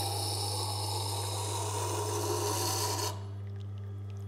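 Curved knife blade ground against the slowly turning wet grindstone of a Tormek T-8 sharpener: a steady rasping hiss that stops sharply about three seconds in as the blade is lifted off, leaving a steady low hum.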